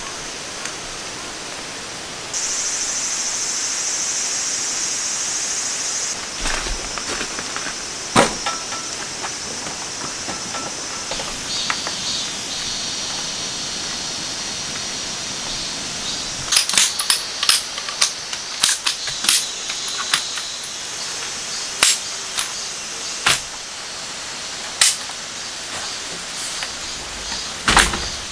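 Camping gear being handled and set down: sharp clicks and knocks of lamps, a lantern and the folding aluminium legs of a camp cot and table, with a quick run of clicks past the middle, over a steady background hiss.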